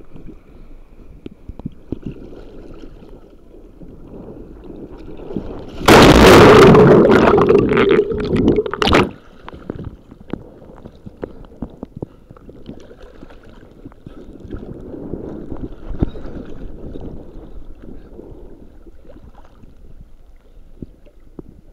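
Sea water moving around a microphone held at the surface, with scattered small splashes. About six seconds in, a loud rush of water over the microphone lasts about three seconds and cuts off suddenly.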